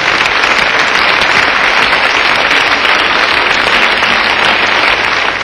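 Audience applauding steadily after a song, then cut off abruptly.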